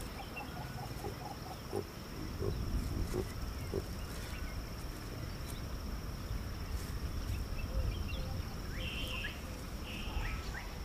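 Wild outdoor ambience: a steady low rumble under a steady high thin whine, with a few soft knocks in the first few seconds and short high chirps near the end.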